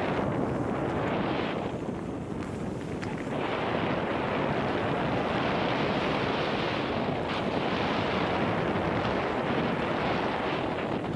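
Wind rushing over a helmet-mounted camera's microphone as a mountain bike rolls fast along a dirt trail, with tyre and trail noise mixed in. The rush eases for a moment about two seconds in, then builds again.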